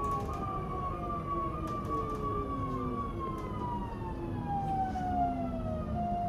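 Traction motors and inverters of a Škoda RegioPanter electric multiple unit whining as the train slows for a stop, with several tones falling steadily in pitch together over a low rumble; near the end one tone levels off.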